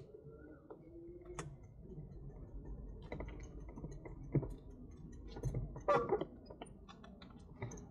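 Irregular light clicks and ticks from a bicycle being moved slowly, its freewheel and parts clicking, sparse at first and busier from about three seconds in, over a low rumble.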